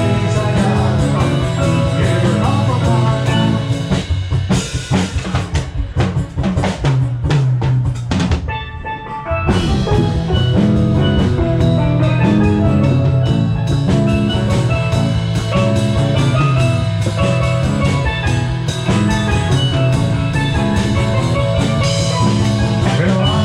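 Live band playing an instrumental passage with steel drums and drum kit over bass. Around the middle the drums take a run of sharp hits, there is a brief drop, and the full band comes back in.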